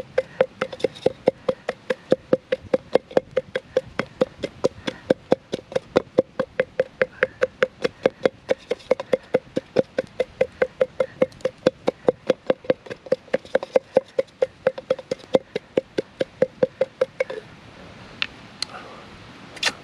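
Wooden stick pounding and mashing food to a purée in a Vargo BOT pot: rapid, even knocks, about four a second, each with a short ring from the pot, stopping about seventeen seconds in. A few faint clicks follow as the stick is lifted out.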